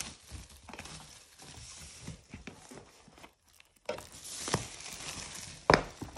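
Clear plastic wrap crinkling as it is peeled off a boxed set, with a couple of sharper knocks as the box is handled and set down on a wooden table near the end.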